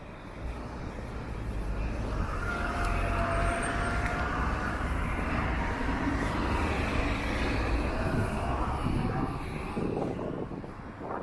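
Road traffic passing on a city street: a long swell of vehicle engine and tyre noise with a deep rumble, building over the first couple of seconds, holding through the middle and fading near the end.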